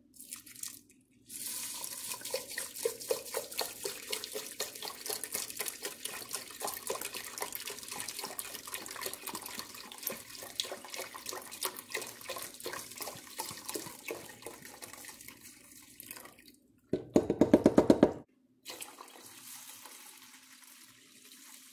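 Vegetable broth poured into a pot of dry brown rice, a long steady pour splashing onto the grains, ending in a brief, much louder gurgling burst. Then water poured from a mason jar, more quietly.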